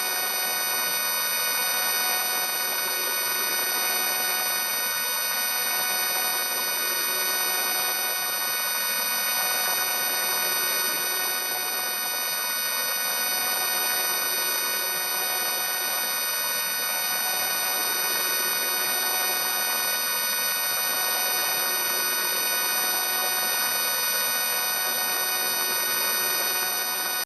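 A steady electronic drone from a 4ormulator v1 effect: a dense held G major chord of many steady tones over a hiss.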